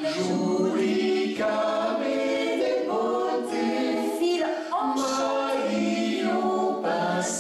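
Mixed men's and women's vocal group singing a cappella in close harmony, held chords shifting about every second, with crisp sibilant consonants.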